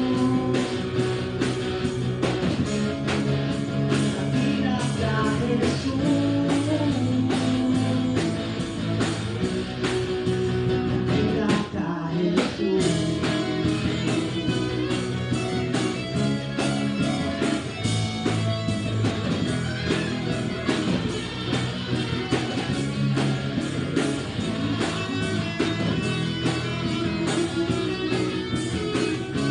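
Band music in Christian rock style: an instrumental passage led by guitar over a steady beat, with a brief break about twelve seconds in.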